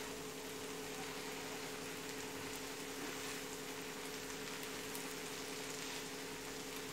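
Erişte noodles simmering softly in butter and water in a frying pan over a low gas flame, a steady faint bubbling with a steady low hum underneath.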